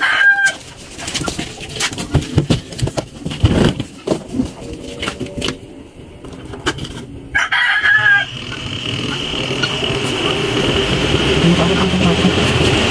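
A rooster crows twice, near the start and again about eight seconds in, over scattered knocks and handling noise. From about eight seconds a steady motor hum starts and slowly grows louder, the washing machine running.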